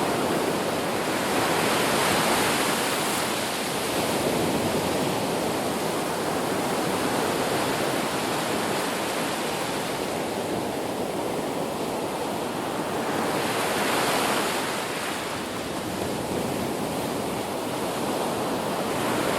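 Ocean waves breaking on a beach: a continuous wash of surf that swells as waves break about 2 seconds in and again, most strongly, about 14 seconds in.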